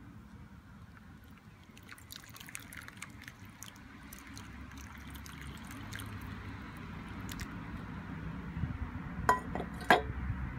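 Water poured from a stainless steel saucepan over an apple into a glass bowl. It starts as drips and a trickle and swells into a steady, gradually louder pour. Two sharp clinks come near the end.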